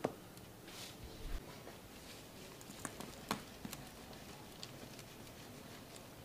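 Cake batter scooped and spread by gloved hands into steel cake rings: soft handling noises with a handful of scattered sharp clicks and taps, the loudest right at the start and about three seconds in.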